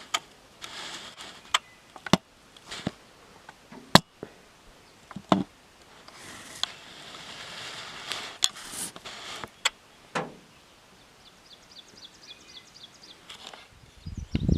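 Scattered sharp clicks and short bursts of rustling, with a small bird singing a quick run of high descending notes near the end.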